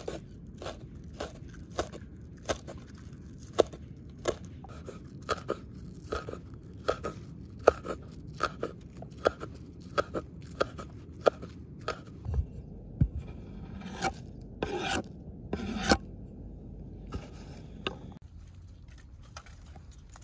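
Kitchen knife chopping green onions on a wooden cutting board, a steady knock about every two-thirds of a second, with a few heavier, less regular knocks later; the chopping stops near the end.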